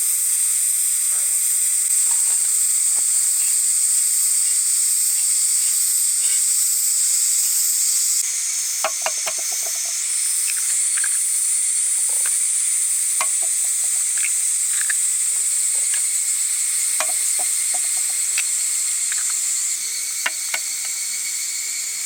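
Vegetables sizzling steadily in a pan over a campfire, a loud even hiss. From about eight seconds in, a utensil stirring them adds scattered light clicks and taps.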